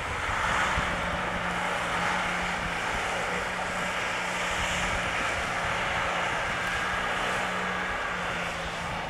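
Mitsubishi Pajero SUV engine running steadily as it drives through snow and slush: a constant low drone under an even hiss.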